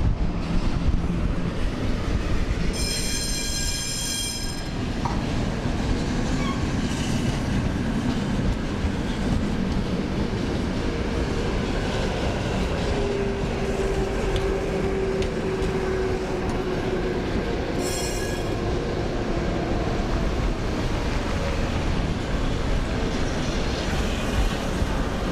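Trams running along street track: a steady rumble of wheels and running gear. A high-pitched wheel squeal rings out about three seconds in for under two seconds, and again briefly about two-thirds of the way through. A steady whine is heard for a few seconds in the middle.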